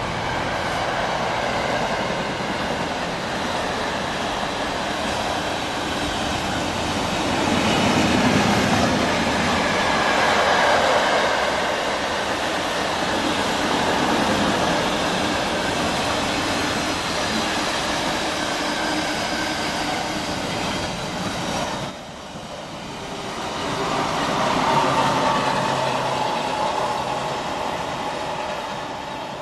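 Intermodal container wagons of a Class 66-hauled freight train running past at speed, a steady noise of wheels on rail. The sound drops suddenly about three quarters of the way through, swells again, then fades as the end of the train draws away.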